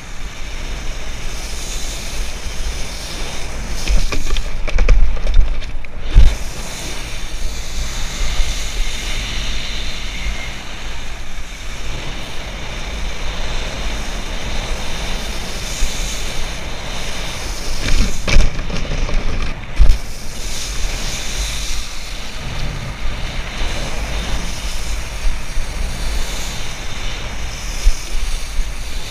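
Wind buffeting the microphone of a head-mounted action camera, over the steady hiss of water spraying off a wakeboard as it is towed across a lake. A few louder thumps come about a quarter of the way in and again about two-thirds in.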